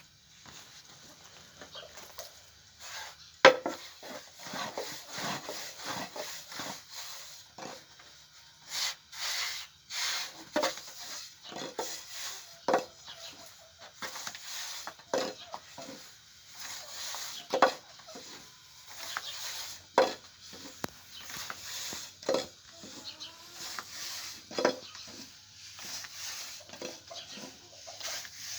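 Irregular sharp knocks about every second or two, the loudest about 3.5 seconds in, with scraping and rubbing between them, like wooden utensils being worked.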